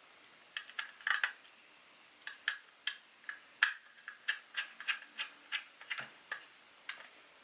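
Small T6 Torx screwdriver turning a tiny mounting screw into the side of a laptop SSD: an irregular run of light, sharp ticks, several a second, stopping shortly before the end.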